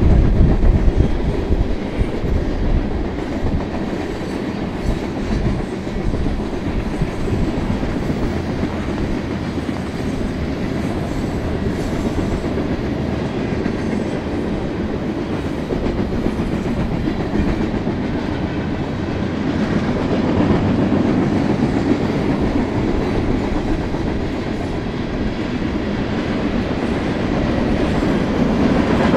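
A mixed freight train's cars rolling past steadily, their steel wheels rumbling and clattering on the rails. The sound grows a little louder about two-thirds of the way through.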